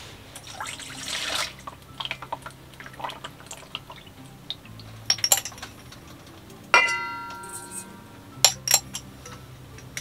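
Cooking prep at a stainless steel mixing bowl: a short pour of liquid near the start, then small clinks of a spoon and jar. About two-thirds of the way through, a metal spoon strikes the steel bowl, which rings for about a second, and two more sharp clinks follow.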